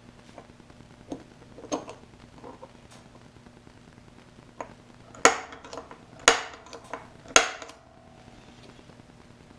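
Sharp metal-on-metal clinks of quarter-inch flat steel bracket pieces and a centre punch on a workbench. There are a few light taps, then three loud strikes about a second apart, each with a short ring.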